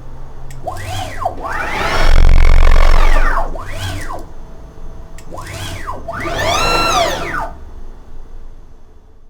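DIY CNC router's stepper motors whining through five quick moves. Each move is a stack of tones that rises in pitch as the axis speeds up and falls as it slows; the second move is the longest and loudest. The sound fades out near the end.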